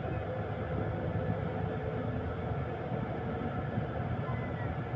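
Steady low rumble of a moving vehicle, heard from inside it, with no changes or separate events.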